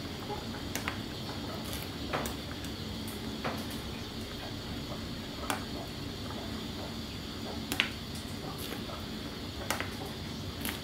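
Metal ladle scooping through simmering soup in a steel pot, clinking sharply against the pot about half a dozen times at uneven intervals, over a steady background hiss.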